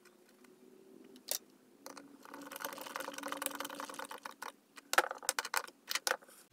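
Small wood screw being turned in by hand with a screwdriver, a scratchy grinding from about two seconds in until about four and a half seconds. A few sharp clicks and taps follow as the screwdriver and parts are handled.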